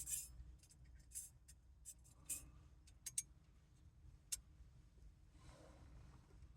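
Small horn-kit parts being handled and fitted by hand: a scattering of light clicks and taps, about a dozen in the first four seconds, then a soft rustle.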